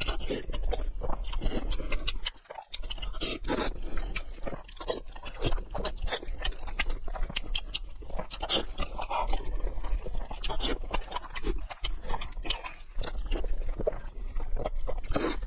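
Close-miked eating sounds: noodles being slurped and chewed, with a continuous run of wet smacks and mouth clicks.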